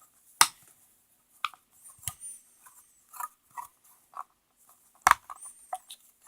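Toy building pieces being knocked apart: a few sharp plastic clacks, the loudest about half a second in and about five seconds in, with lighter taps and rattles between.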